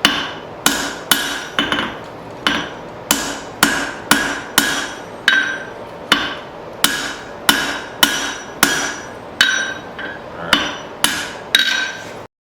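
Blacksmith's hand hammer striking hot steel on an anvil: about twenty blows at an uneven pace of one to two a second, each with a short metallic ring, with a couple of short pauses.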